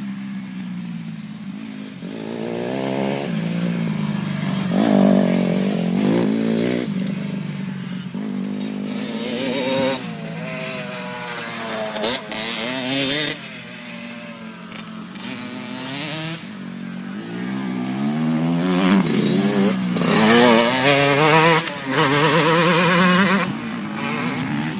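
Motocross dirt bike being ridden round a dirt track, its engine revving up and falling back over and over as the rider works the throttle and changes gear. It passes close by about halfway through and is loudest again near the end.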